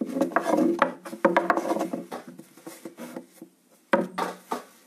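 Hands pressing and flattening a ball of dough on a floured wooden pastry board. Soft rubbing with a few short knocks of wood, the sharpest about four seconds in.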